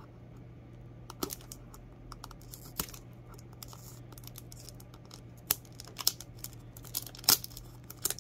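Fingernails picking and scratching at the cellophane wrap on a cardboard box, making irregular sharp clicks and crinkles that come more often in the second half.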